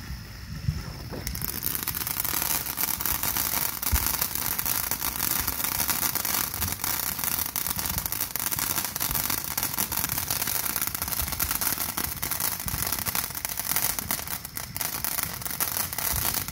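Ground spinner firework (an 'eyeball' spinner) burning, giving a steady hiss thick with crackles. It starts about a second in and stops abruptly right at the end.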